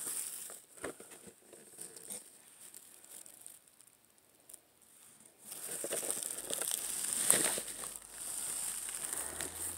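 Bubble wrap rustling and crinkling as wrapped items are handled. There are a few light clicks at first and a near-silent pause midway, then steadier, louder crinkling in the second half.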